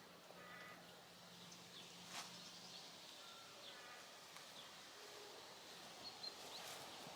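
Near silence: faint outdoor background with a few faint short chirps and light ticks.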